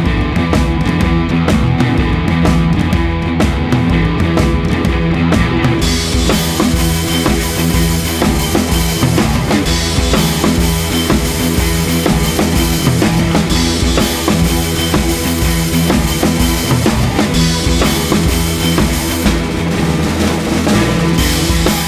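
Rock backing music with a drum kit keeping a steady beat, cymbals coming in about six seconds in.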